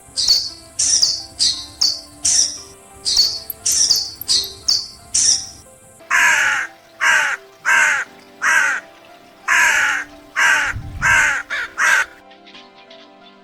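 Bird calls over background music with held notes: about ten quick, high calls that slide downward, then about nine loud, harsh caws typical of a crow, ending shortly before the close.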